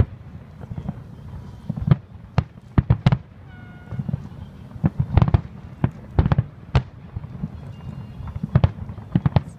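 Aerial fireworks shells bursting: over a dozen sharp bangs at irregular intervals, several coming in quick clusters of two or three.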